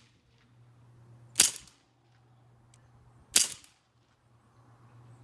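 CO2-powered BB gun firing twice, two sharp cracks about two seconds apart.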